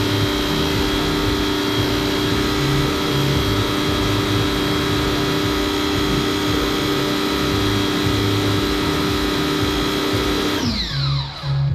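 Vacuum cleaner running steadily as its floor nozzle is pushed over the wet floor, then switched off near the end, its motor whine falling away.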